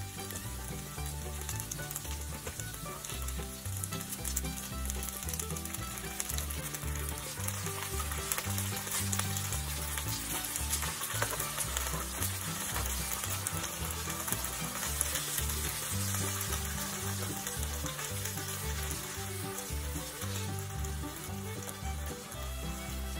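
Penne arrabbiata ingredients sizzling steadily in a frying pan on the stove.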